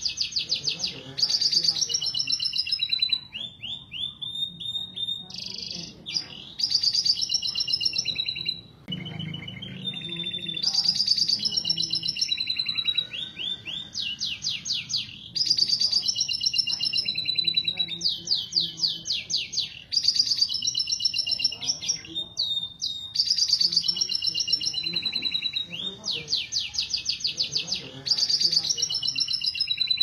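Domestic canaries in breeding song: fast rolling trills and chirped phrases, a few seconds each, with short softer gaps between. This is the male's rolling 'ngerek' courtship song, mixed with a female calling for the male.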